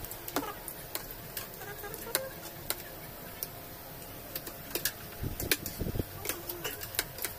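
Spoons and forks clinking and scraping against plates while eating, in irregular light clicks, with a couple of dull low thuds about five to six seconds in.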